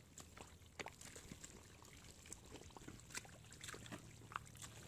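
Faint wet squelches and small splashes of liquid mud and water, a scatter of soft irregular ticks and drips, as feet and hands move in the mud.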